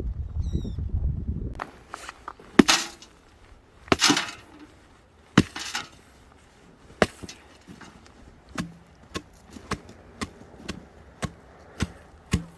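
Wood being chopped: a string of sharp wooden knocks, a few heavy ones followed by lighter, evenly spaced taps about two a second. A low rumble and a few short bird chirps come before the chopping starts.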